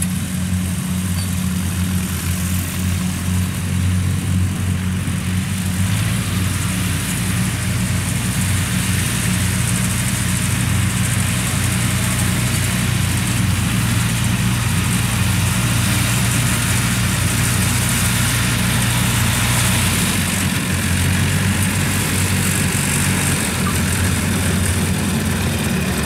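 Engine of a small tracked rice-hauling carrier running steadily as it crawls across a paddy field, its note changing about six seconds in and again around twenty seconds.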